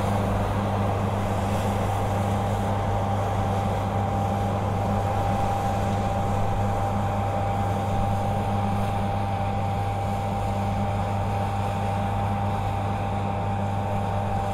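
An engine running steadily at constant speed, a low hum with a thin steady whine above it and no change in pitch or level.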